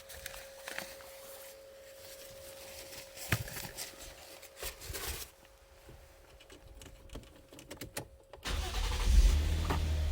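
Scattered clicks and handling sounds over a faint steady tone, then about eight and a half seconds in the Toyota Crown's engine starts and runs steadily at idle.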